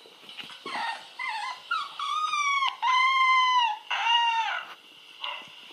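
A puppy whining and howling: a few short, wavering whines, then three longer drawn-out howls in a row.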